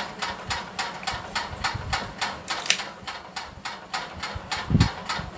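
Steady mechanical ticking, about four sharp ticks a second, with a brief low thump near the end.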